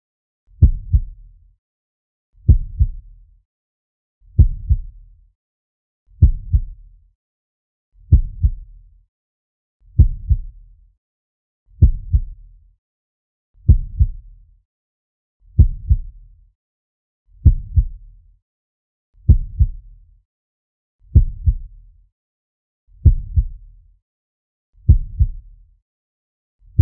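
Slow heartbeat sound effect: a steady lub-dub with silence between beats. Each beat is a pair of low thumps close together, coming a little under two seconds apart.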